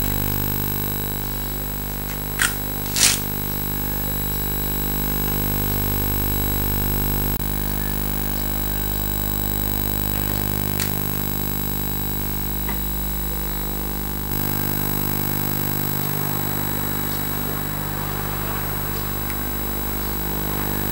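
A steady drone of many held tones under a hiss, unchanging throughout, with two sharp clicks about two and a half and three seconds in and a fainter one near eleven seconds.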